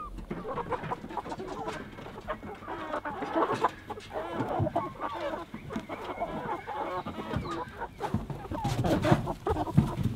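A crowded flock of Ross broiler chickens clucking and calling over one another, many short calls overlapping. Louder knocks and scuffling come in near the end.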